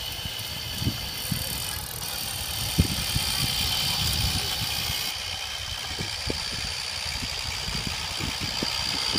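Razor E100 electric scooter's motor running with a steady high whine as two children ride it, over irregular low thumps and rumble on the microphone.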